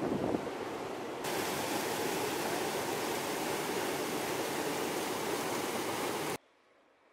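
River floodwater pouring over a low weir: a steady rush of white water that comes in abruptly about a second in and cuts off abruptly near the end, leaving near silence. Before it, the swollen river's flow with wind gusting on the microphone.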